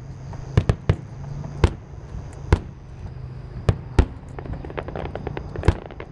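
Star mine (rapid-fire barrage) fireworks: aerial shells going off one after another in about eight sharp booms, with a quick run of smaller crackling pops about four and a half seconds in.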